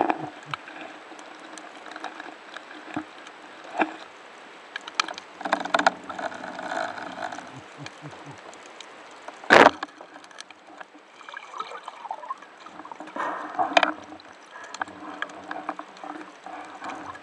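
Underwater recording: steady water hiss with scattered small clicks and bubbling, broken about halfway through by one loud, sharp crack: a band-powered Spetton Rebel EC 82 speargun firing its 6.5 mm shaft.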